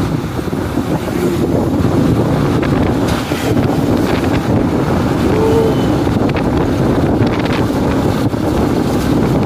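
Wind rushing over the microphone of a moving motorcycle, with the motorcycle's engine running steadily underneath.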